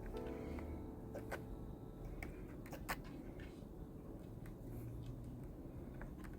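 Faint room sound with a few light, sharp taps. Background music dies away in the first moment.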